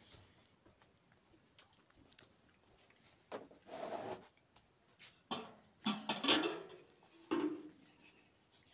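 Steel dishes handled during a meal eaten by hand: a few short scrapes and rustles of a steel bowl and plate, bunched around three to four seconds in, again around six seconds, and once more near the end.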